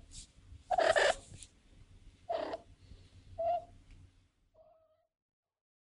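Young female cat in heat calling: three loud, short calls about a second apart, the first the longest, then a faint fourth call.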